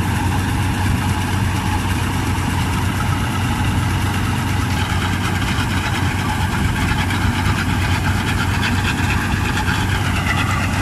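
Combine harvester's engine running steadily while threshed paddy grain pours from its unloading spout onto a tarpaulin, a constant low hum with the hiss of falling grain.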